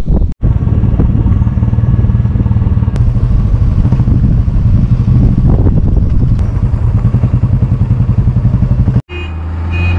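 Motorcycle engine running steadily under way, heard from on board the bike, with a quick regular pulsing. It drops out briefly twice, near the start and about nine seconds in, and after the second break a smoother, steadier engine hum takes over.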